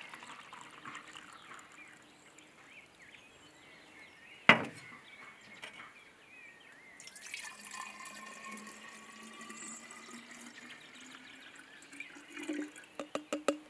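Water poured from a glass bottle into a paper cup, then a single sharp knock about four and a half seconds in as the glass bottle is set down on a glass tabletop. From about seven seconds, water is poured from the cup into an empty glass bottle, its pitch rising slowly as the bottle fills, ending in a few splashes and clicks.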